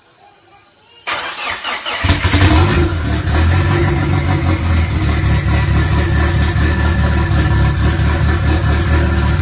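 A Toyota pickup's engine is started: the starter cranks for about a second, the engine catches about two seconds in with a brief rev, then settles into a steady idle.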